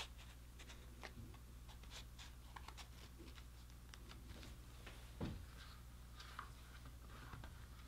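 Faint handling of a leather wallet: quiet rustles and small clicks, with one soft knock about five seconds in.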